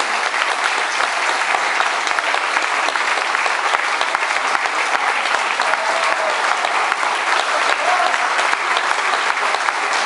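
Audience applauding steadily: dense hand clapping from a crowd, with no music.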